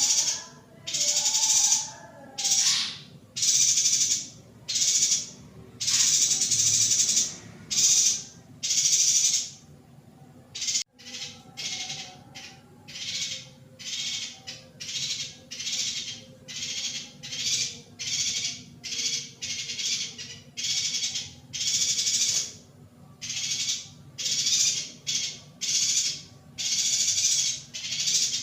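Female yuhina giving a long run of harsh, hissing calls, one after another at about one a second, turning shorter and quicker after a sharp click about eleven seconds in.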